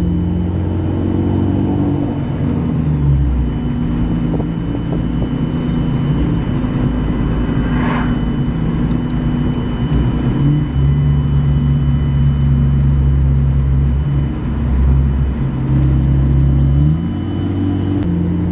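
Turbocharged Mitsubishi car engine running under way, heard from inside the cabin. The engine note holds steady between shifts in load, and a faint high turbo whistle falls away about three seconds in and climbs again near the end. There is one short sharp noise about eight seconds in.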